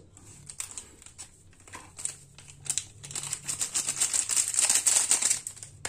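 A foil seasoning sachet crinkling as it is handled and squeezed out over noodles, most dense in the second half.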